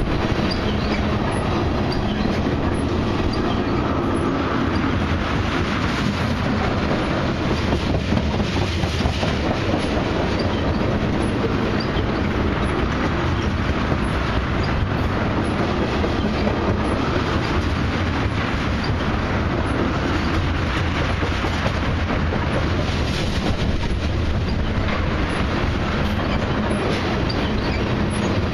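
Loaded ethanol tank cars of a long freight train rolling steadily past: a continuous rumble of steel wheels on the rails, with faint clicks recurring at fairly even spacing.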